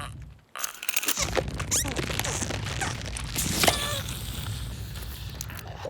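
Busy cartoon sound effects: a dense scraping, rustling texture over a low rumble, with scattered clicks and one sharp, loud hit a little past halfway.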